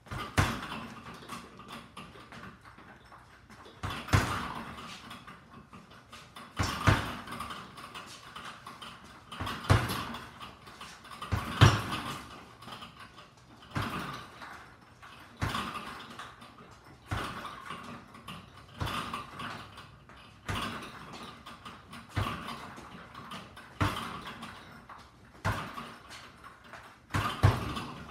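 Punches landing on a double-end bag in a steady run of quick taps, with a louder, sharper hit about every two seconds.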